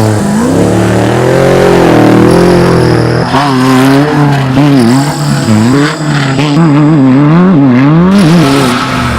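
Off-road race vehicle's engine revving, its pitch rising and falling slowly at first, then swinging up and down in quick, repeated throttle blips from about three seconds in.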